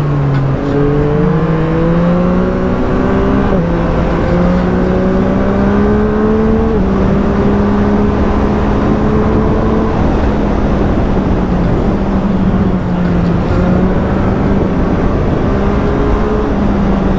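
Yamaha MT-09's 890 cc inline-three engine under way, pulling through the gears: its pitch climbs, drops sharply at a gear change about three and a half seconds in and again around seven seconds, then holds fairly steady before falling off near the end as the throttle eases, with steady wind noise underneath.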